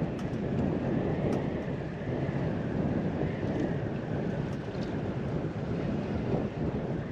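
Steady wind rumbling on the microphone.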